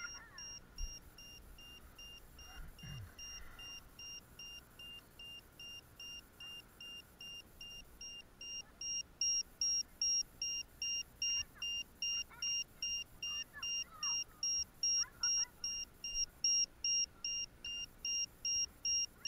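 Electronic buzzer on a small FPV quadcopter beeping in a fast, even series of short high beeps, about two to three a second, growing louder from about halfway through.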